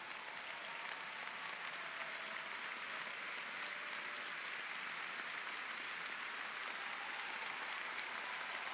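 A large arena crowd applauding: dense, even clapping that swells slightly, greeting a speaker coming to the podium.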